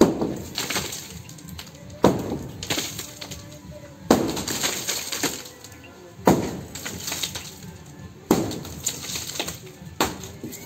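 Heavy hand-swung hammer blows breaking an old roof slab made of brick-chip concrete, about one strike every two seconds, six in all. Each blow is followed by a clatter of cracking and falling rubble.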